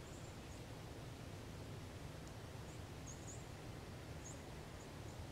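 Quiet pine-woods ambience: small birds give short, very high, thin chirps at irregular intervals, about eight of them, over a steady low rumble.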